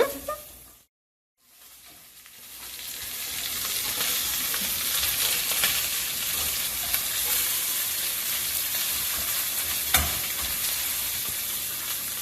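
Salmon fillets sizzling and crackling in hot oil in a frying pan, fading in after a brief silent gap, with a single knock about ten seconds in.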